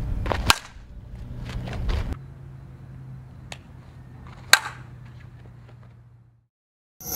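Two sharp cracks of a softball bat hitting the ball, about half a second in and again, louder, about four and a half seconds in, with a fainter click between them. A low rumble runs under the first two seconds.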